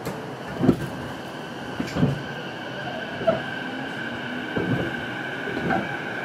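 Running sound inside an E233-series electric commuter train's motor car (MoHa E233-1226) at steady speed: a constant whine over rumbling wheel noise, with the wheels knocking over rail joints about every second and a bit, five times.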